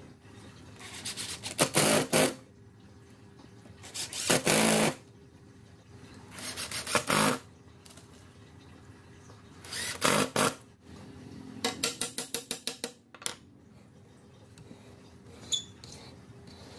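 Hand and tool work on wooden boards: four short bursts of harsh noise a couple of seconds apart, then a quick run of clicks, about eight a second, lasting over a second.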